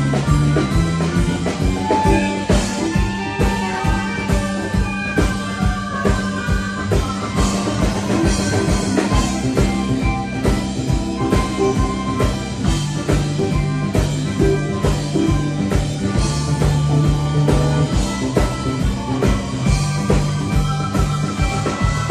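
Live rock band playing: electric guitars, keyboard and drum kit, with a steady drum beat.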